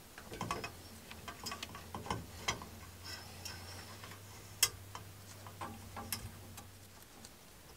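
Small plastic clicks, ticks and rubbing as gloved hands seat a UV lamp's plug in the end of a stainless UV disinfection chamber and twist its connector cap on. One sharp click about four and a half seconds in is the loudest, over a faint steady low hum.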